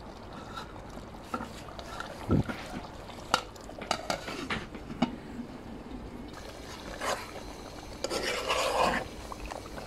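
Metal spoon stirring thick beef curry in an aluminium pot, with scattered clinks and scrapes against the pot's sides. The aluminium lid is handled, and one sharp metal clank comes about two and a half seconds in, with a rougher scraping stretch near the end.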